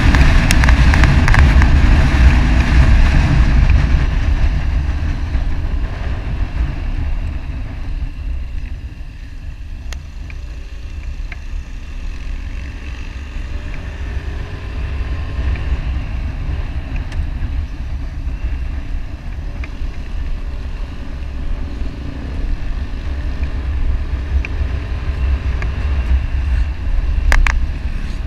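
Riding sounds of a motorcycle: wind buffeting the microphone over engine and tyre noise. It is loudest for the first few seconds, then eases as the bike slows, with faint rising and falling engine pitch. A sharp click comes near the end.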